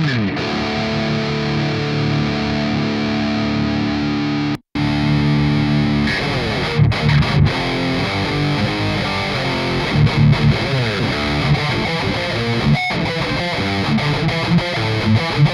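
Distorted high-gain electric guitar played through the Amped Roots amp sim with a Celestion Vintage 30 speaker impulse response, a metal tone. A held chord rings for about four and a half seconds and cuts off briefly, then a fast riff of short, choppy notes follows.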